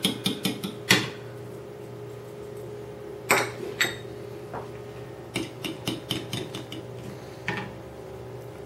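Fork beating eggs in a mixing bowl: quick clinks of metal on the bowl in short runs of several a second, with pauses between the runs.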